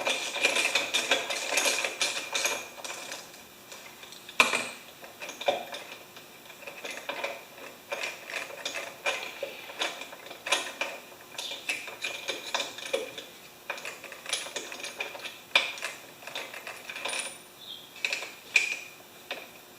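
Socket ratchet clicking in irregular spells, with light metal tool clinks and one sharp knock about four seconds in, as the spark plug is unscrewed from a 159cc lawn mower engine.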